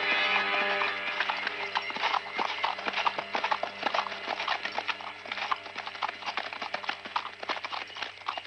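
Hooves of several ridden horses clopping unevenly at a walk through scrub. Background music fades out in the first couple of seconds.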